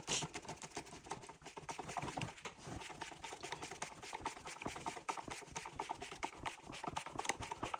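Parts of a Graco X5 paint sprayer's drive being handled and turned by hand, freshly cleared of dried paint: a rapid, irregular run of small clicks and rattles.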